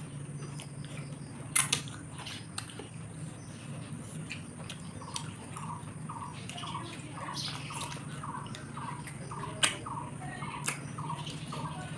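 Mouth noises of someone eating grilled chicken by hand: chewing and a few sharp lip smacks, over a steady low hum. From about five seconds in, a faint chirp repeats about three to four times a second.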